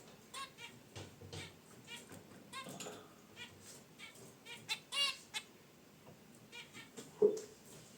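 Zebra finches calling in a cage: short nasal honking chirps, repeated irregularly, several close together about five seconds in. A short dull knock near the end.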